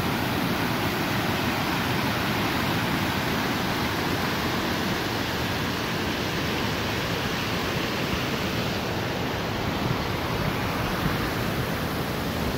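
Jane Brook Falls rushing: a steady, unbroken wash of falling water.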